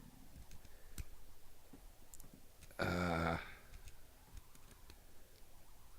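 Faint, scattered small clicks and ticks of a lock pick and tension wrench working the pins inside a clear plastic training lock. A short vocal sound from a person about three seconds in.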